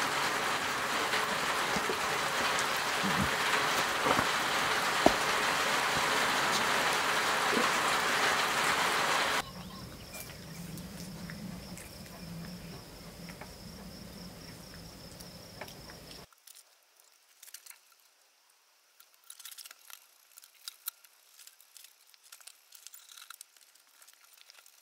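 Heavy rain pouring down steadily, cutting off suddenly about nine seconds in. A steady high insect trill follows. In the last third, faint small clicks and scrapes of a fillet knife working on small peamouth on a plastic cutting board.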